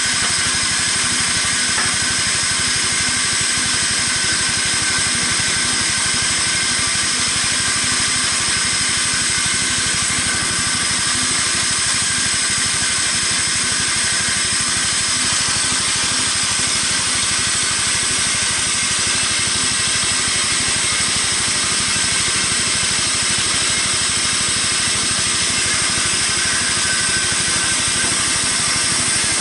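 Homemade band sawmill running steadily, its blade sawing lengthwise through a 10-inch beam; the sound is high-pitched and holds an even level throughout.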